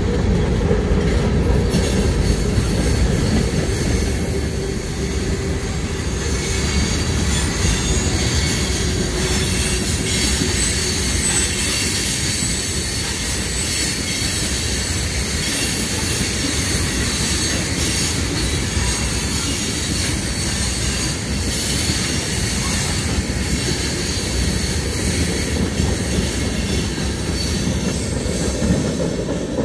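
Freight cars of a Kanawha River Railroad train, tank cars and covered hoppers, rolling steadily past on steel wheels with a continuous rumble. A thin, high wheel squeal runs over the rumble from about a quarter of the way in.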